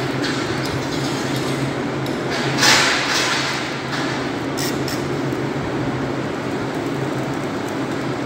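A steady low machine hum under a constant rushing background noise, with one louder hissing surge about two and a half seconds in and a few faint clicks soon after.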